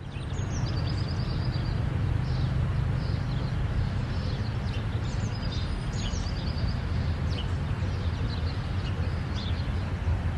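Birds chirping over a steady low rumble of city traffic.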